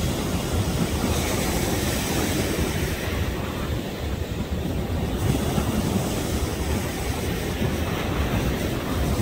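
Wind buffeting the microphone over steady ocean surf, a rough low rush with no distinct events.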